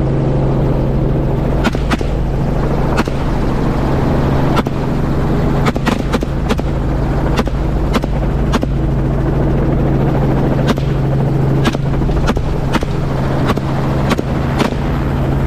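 Rifle shots fired from a helicopter, single cracks at irregular intervals of about a second, some in quick pairs, over the helicopter's steady engine and rotor drone.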